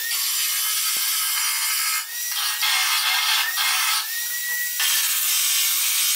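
Handheld corded power tool abrading car-body sheet metal in four or five bursts of harsh, hissing grinding. In the short lulls between them the tool's motor whine is heard spinning up and running free.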